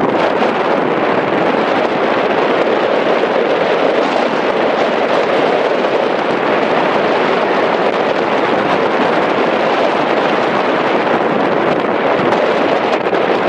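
Steady rushing noise of strong wind on the microphone, mixed with the jet engines of an Airbus A320 on landing approach.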